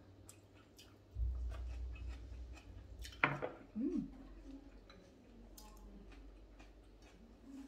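A large serving platter set down on the table with a clunk about three seconds in, after a second or two of low rumbling handling noise. A brief voice sound follows, then faint scattered clicks.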